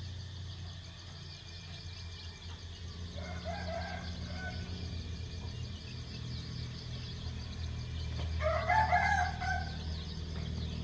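A chicken calling twice, each call lasting about a second, the first about three seconds in and the louder second one near the end, over a steady low hum.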